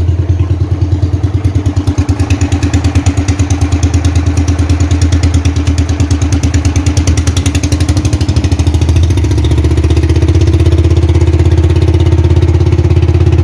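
Outrigger boat's (bangka) engine running under way with a fast, even pulse, speeding up and getting louder about nine seconds in.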